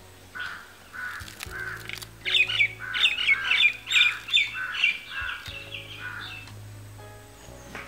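Birds calling: one call repeated steadily about every half second, with a burst of sharper, higher chirping in the middle that is the loudest part.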